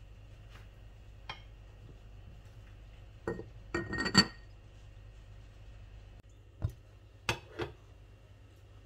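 A glazed earthenware pot's lid clinks as it is set in place, a quick cluster of knocks about three to four seconds in. Near the end, a glass jar knocks against a stainless steel pot three times.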